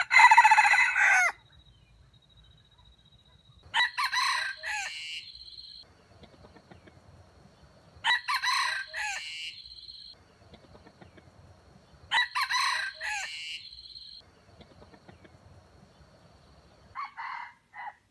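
Red junglefowl (wild chicken) crowing: a loud crow at the start, then three shorter crows about four seconds apart, and a brief call near the end.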